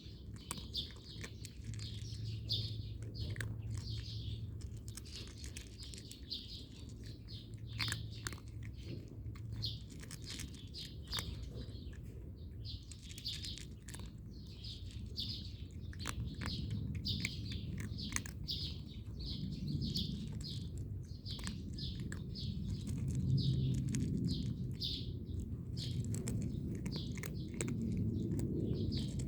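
Small birds chirping over and over, with a cat crunching dry kibble in short sharp clicks underneath.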